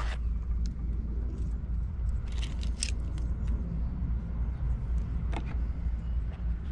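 Small gimbal accessories and their plastic bag being handled, giving a few light clicks and rustles, a cluster of them about two and a half seconds in and another near five and a half seconds, over a steady low rumble.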